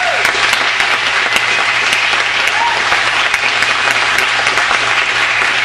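Audience clapping steadily, with a brief vocal whoop about two and a half seconds in.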